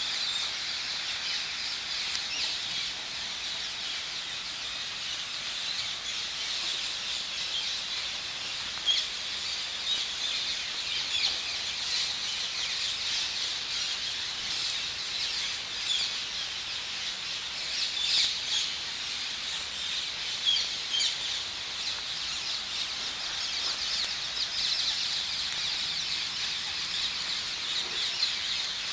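A large flock of rose-ringed parakeets calling all at once: a dense, unbroken chorus of high-pitched screeches, with louder single squawks standing out now and then.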